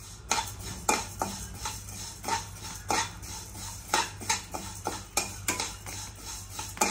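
Vermicelli being stirred and fried in a pan, the utensil scraping and clinking against the pan about three times a second in an irregular rhythm.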